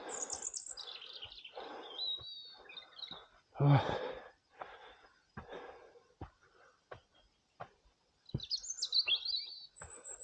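Songbirds chirping and warbling, with a burst of song near the end. A short human vocal sound, such as a grunt or breath, comes about four seconds in, and faint scattered clicks and knocks sound in between.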